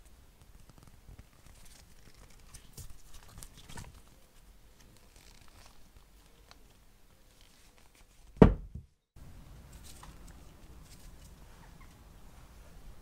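Faint rustling of nitrile gloves and light clicks as a powder-coated brake caliper is turned over in the hands, then a single loud thump about eight seconds in, followed by a brief dropout.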